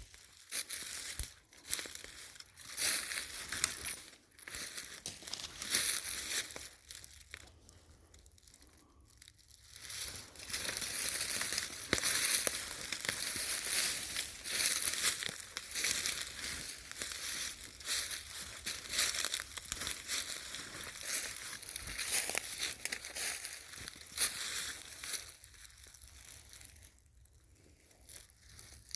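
Footsteps crunching through dry leaf litter on the forest floor in an irregular walking rhythm, stopping briefly twice.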